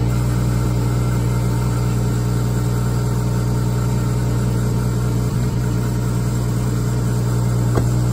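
A high-mileage GMC Envoy's engine idling steadily just after a cold start in sub-zero cold. The owner calls it terrible-sounding.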